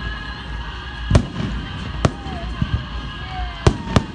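Aerial firework shells bursting: four sharp bangs, the last two in quick succession near the end.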